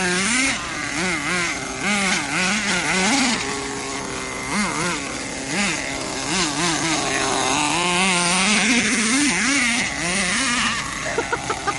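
Small nitro glow engine of a 4WD RC monster truck revving up and down as the throttle is worked, its pitch swinging up and down about once a second, with a few quick sputters near the end.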